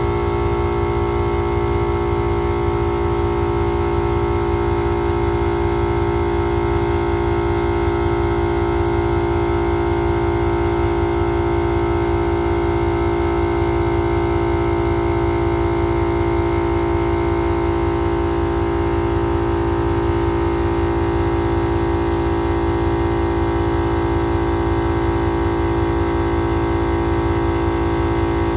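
MaxiTrac 300 L/min 12-volt portable air compressor running steadily under load, pumping air into a flat truck tire. Its motor and pump make an even, unchanging drone.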